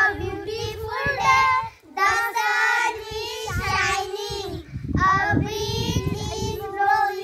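Young girls singing together in a line of song, with brief breaks for breath about two seconds in and just before five seconds.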